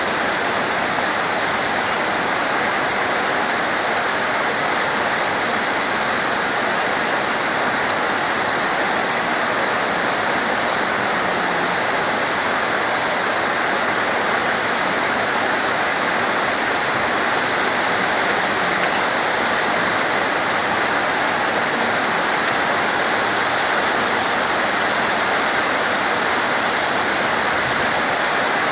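Heavy rain falling, a steady, even hiss with no change in intensity, with a single faint click about eight seconds in.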